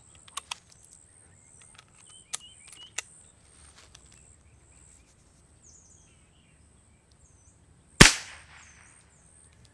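Brocock Atomic XR .22 regulated PCP air pistol, tuned to 17.5 foot-pounds, fired once through its shrouded barrel with no moderator: a single sharp, really quite loud report about eight seconds in, with a short echo trailing off. A few faint clicks come before it as the gun is handled.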